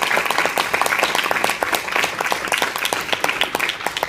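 Audience applauding, with one pair of hands clapping close to the microphone, whose sharp claps stand out above the rest.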